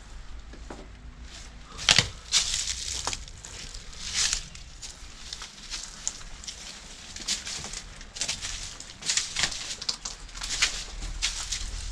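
Footsteps crunching over dry leaves, twigs and rubble on a derelict floor, in irregular crackling steps.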